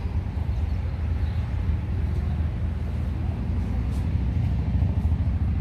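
Wind buffeting the phone's microphone, a steady choppy low rumble.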